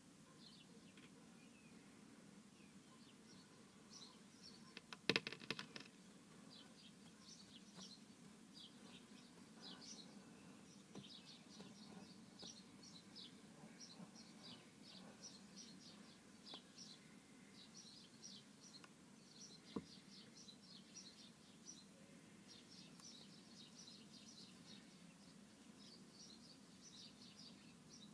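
Faint, irregular chirping of small birds, over a low steady hum. A brief cluster of sharp clicks about five seconds in, and a single click later.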